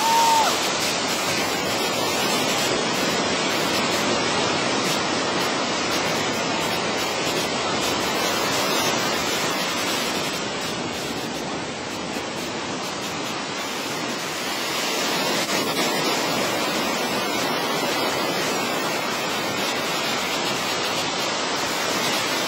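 Ocean surf breaking and washing in a continuous loud rush that swells slightly about two thirds of the way through. A brief high squeak comes right at the start.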